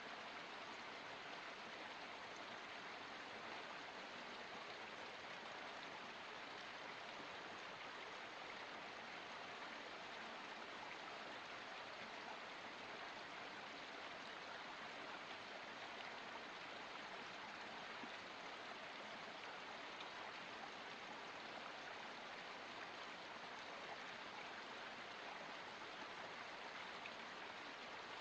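Water of a forest spring running steadily, an even, unbroken hiss.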